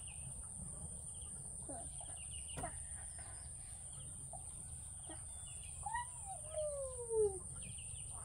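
Chickens calling, with scattered short calls and one long call near the end that rises briefly and then falls in pitch.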